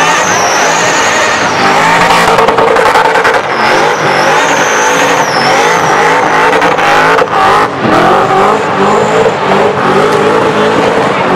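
Blown engine of a small hatchback held at high revs through a tyre-shredding burnout, with the tyres squealing in a wavering high tone. The engine briefly drops off and comes back twice about seven seconds in.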